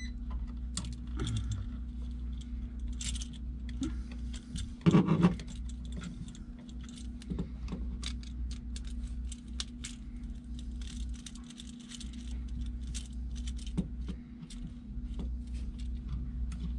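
Light metallic clicks and clinks from a screwdriver working the terminal screws of a 20 amp electrical receptacle and the wires being moved between them, over a steady low hum. One brief louder sound comes about five seconds in.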